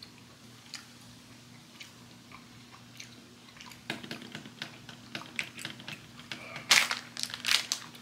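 A person chewing food close to the microphone: scattered small clicks at first, growing busier about halfway through, with two louder bursts near the end.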